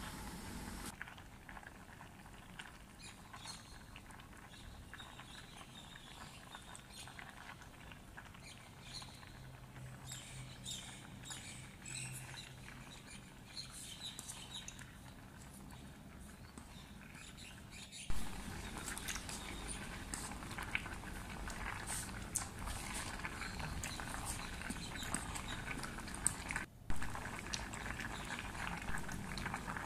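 Pot of mung beans in sweet liquid bubbling on the stove: quiet, scattered pops and little high clicks, louder from about halfway through, with a few sharp knocks near the end.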